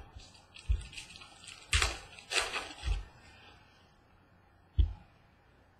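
Baseball trading cards being handled: a few quick rustling slides of cards and soft taps as they are set down on a desk, with a single thump near the end.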